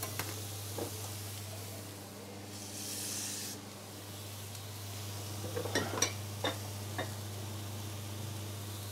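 Vegetables sizzling in a frying pan as they are stirred with a metal utensil, the hiss swelling briefly about three seconds in. A few sharp clinks of the utensil against the pan come around six seconds in, over a steady low hum.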